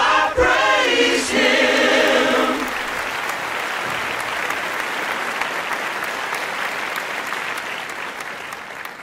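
A choir sings its final held notes, which end about three seconds in. Applause follows and slowly fades out near the end.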